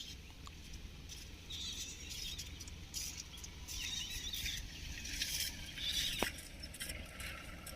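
Many small birds chirping and twittering in quick, high squeaky calls, over a steady low rumble.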